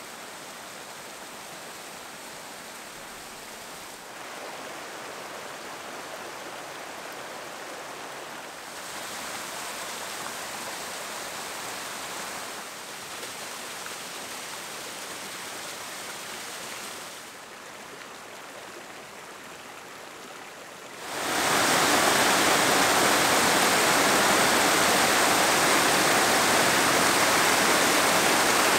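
Small alpine waterfalls and cascades splashing over rock ledges and boulders: a steady rushing of falling water. It shifts in loudness a few times and becomes much louder about three quarters of the way through.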